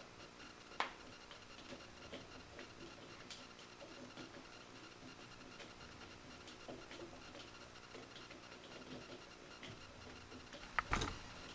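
Faint handling noises from hand work on the saw motor's parts: light scratching and rubbing, a sharp click about a second in, and two louder knocks near the end.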